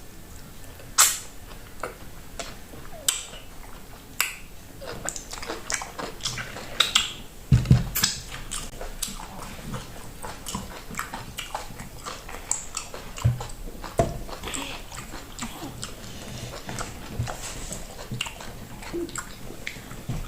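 Close-miked eating of okra soup and fufu: wet mouth smacks, chewing and slurping, with sharp clicks every second or so and a few low thumps.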